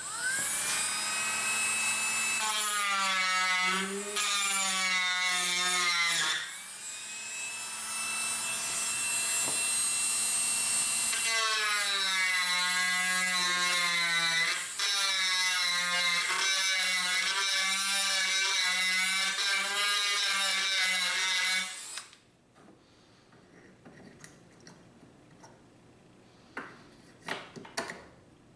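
Dremel rotary tool spinning up to a high whine, its pitch dipping and wavering as the bit bears into the wooden stock to shape it down. It eases off briefly around six seconds, speeds back up, cuts again, and stops about twenty-two seconds in, leaving a few faint clicks.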